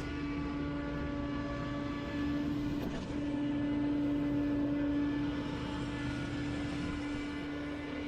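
Gas-powered leaf blower running steadily, its engine and fan holding a constant pitch, slightly louder for a couple of seconds midway.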